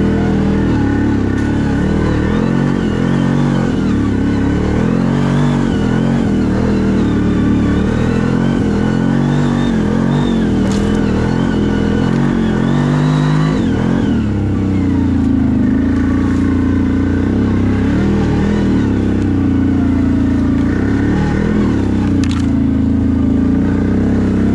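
CFMoto 1000 ATV's V-twin engine running while riding on a trail, its revs rising and falling again and again for the first half, then steadier. A couple of sharp clicks come through, one about eleven seconds in and one near the end.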